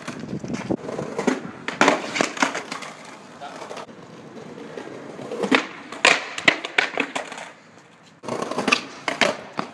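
Skateboard on stone paving: sharp clacks of the deck and wheels hitting the slabs, with stretches of wheels rolling between them, as the board clatters away riderless from a bailed 360 flip.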